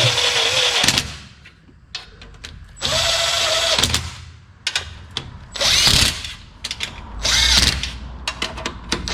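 Cordless power tool running transmission pan bolts up snug on a Turbo 400 automatic transmission, in about four short bursts of roughly a second each, the motor's pitch rising and dropping within each burst, with light clicks of bolts and socket between.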